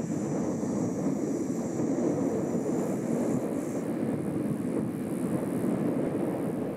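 Jet engines of an Airbus A320 rolling along the runway: a steady, heavy rumble with a thin high whine that fades out about three and a half seconds in.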